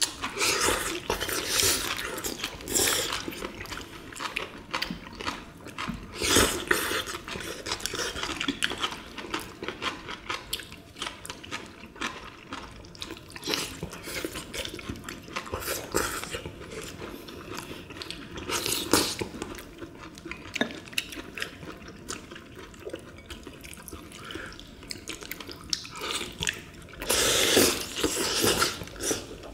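Close-up eating sounds from several people: wet slurping and chewing of spicy braised monkfish with bean sprouts, with chopsticks and spoons clicking against ceramic bowls. Longer slurps stand out about a second in, around six seconds, and near the end.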